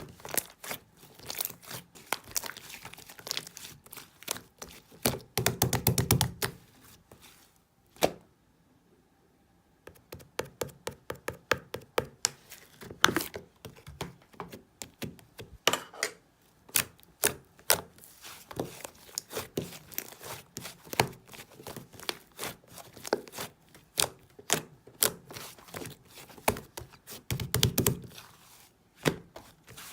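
Slime being pressed, stretched and poked by hand, making rapid clicky pops and crackles, with two spells of heavier low squishing. The sounds stop for about two seconds some eight seconds in.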